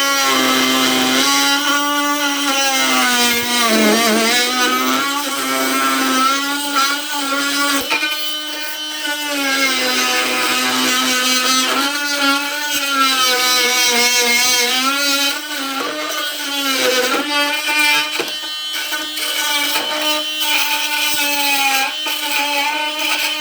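Ryobi HP brushless oscillating multi-tool on its top speed setting cutting through a 2x4, with a loud, steady high whine. Its pitch sags and recovers several times as the blade loads up in the wood, most deeply about four seconds in.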